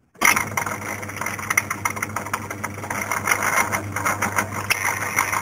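Myford lathe's electric motor switched on, starting suddenly and then running steadily with a low hum while it winds a coil. A mechanical turns counter on the winding fixture clicks rapidly throughout.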